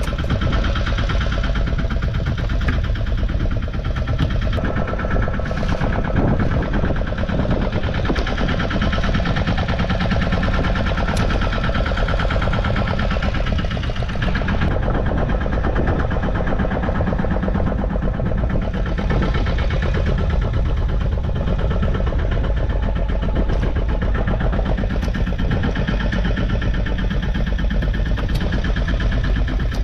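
Fishing boat's engine running steadily with an even, fast pulse.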